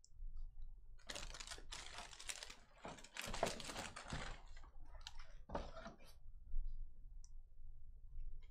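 Crinkling and rustling of thin plastic as a foil trading card with its protective peel film is handled in a clear plastic sleeve, in three short spells about one, three and five and a half seconds in, with a few light clicks.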